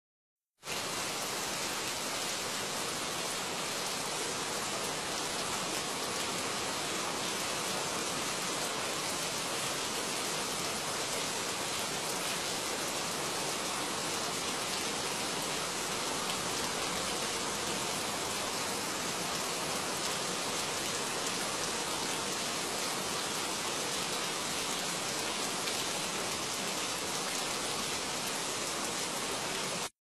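Steady, even hiss of noise that starts about half a second in, with no calls or separate events standing out.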